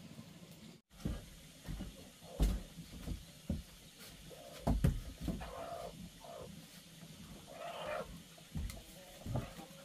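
Irregular thumps and knocks of things being handled and shifted on a wooden storage loft, with a couple of short, higher scraping or crying sounds between them about halfway through and near the eight-second mark.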